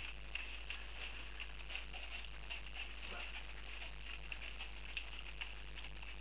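A litter of Dogue de Bordeaux puppies eating together, with irregular small wet clicks and smacks from lapping and chewing. One short falling squeak, about three seconds in.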